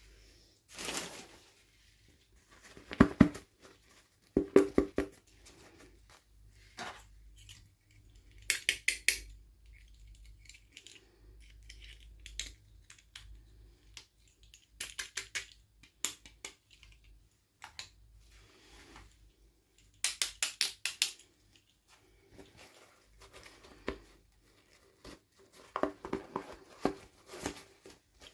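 Unboxing of small plastic toys: bursts of rapid clicking, snipping and crinkling every few seconds as packaging is cut and torn open and small plastic pieces are handled.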